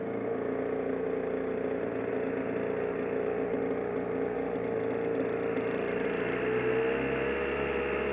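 5 hp Tohatsu outboard motor running steadily under way, pushing a small boat, with its pitch lifting slightly about two-thirds of the way through.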